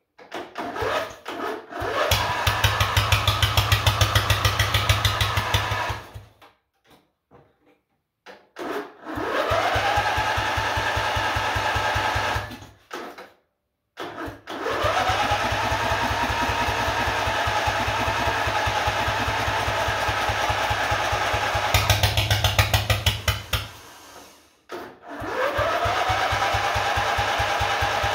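Racing riding mower's engine, fitted with short open exhaust pipes, started again and again. Each time it catches, the pitch rises quickly as it speeds up, then it runs at a steady pitch for a few seconds and cuts out. This happens four times. The engine is not yet running right.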